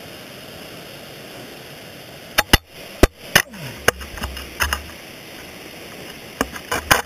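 Ice axe picks and crampon points striking and scraping on rock during dry tooling: a series of sharp clicks and knocks starting about two and a half seconds in, with a cluster near the end. Before them only a steady faint hiss.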